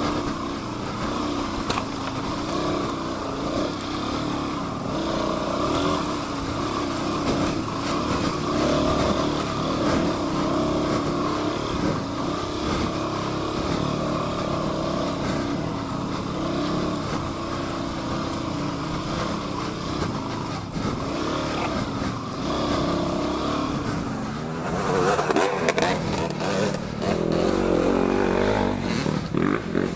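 Suzuki DR-Z400's single-cylinder four-stroke engine running under constantly changing throttle, the pitch rising and falling. It gets louder and rougher about five seconds before the end.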